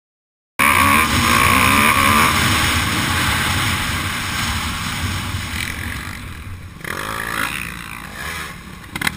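Motocross dirt bike engine running and revving under an onboard camera, with rush of wind and its pitch rising and falling as the rider accelerates and backs off; the sound cuts in about half a second in and is loudest at first. A sharp knock near the end.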